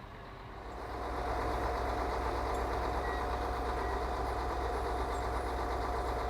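Heavy engine running steadily, rising in over about the first second and then holding an even, low hum.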